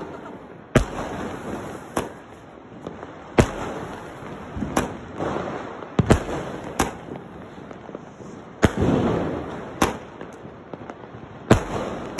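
Aerial fireworks shooting up and bursting overhead: a sharp bang every second or two, about nine in all, with crackling hiss between the bursts.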